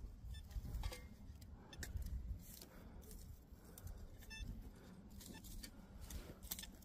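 Low rumble of wind on the microphone with scattered small clicks and knocks of handling, and a short electronic beep about four seconds in.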